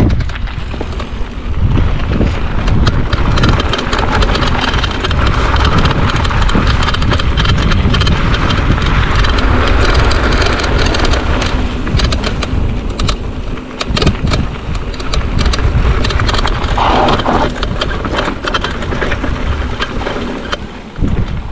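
Mountain bike riding fast over a trail: a loud rumble of tyres and wind on the microphone, with many sharp rattles and clicks as the bike goes over bumps.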